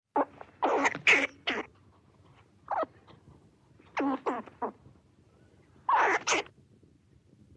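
Grey squirrel calling: a series of short, sharp barks, mostly in quick groups of two or three, spaced a couple of seconds apart.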